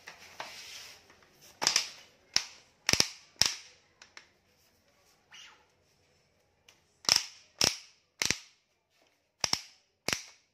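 Sharp plastic clicks and snaps from a twist-wring mop's plastic wringing mechanism as it is worked to squeeze the mop pad. They come in two irregular runs of four or five clicks each, after a brief rustle.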